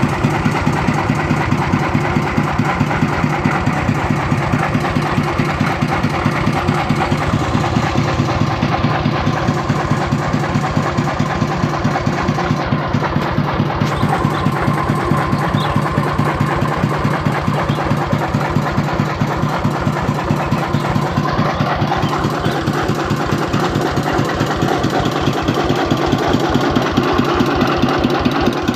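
Dongfeng S195N single-cylinder diesel engine running steadily with an even chugging beat, driving a 20 kW three-phase generator.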